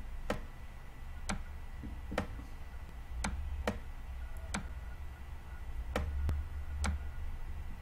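Computer mouse clicking about eight times at uneven spacing, roughly once a second, as numbers are drawn on screen by hand. A steady low hum runs underneath.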